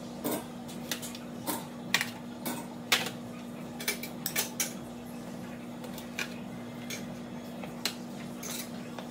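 Metal kitchen utensils clicking and clattering against a metal rack and an aluminium foil pan as pieces of smoked rib meat are handled, about a dozen sharp clacks at irregular intervals, the loudest about two and three seconds in. Under it runs a steady low hum.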